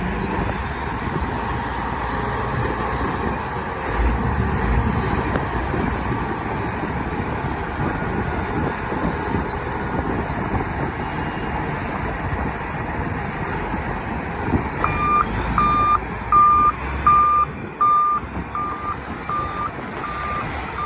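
Lovol bulldozer's diesel engine running steadily under work. About three quarters of the way in, its reversing alarm starts beeping at one pitch, a little faster than once a second.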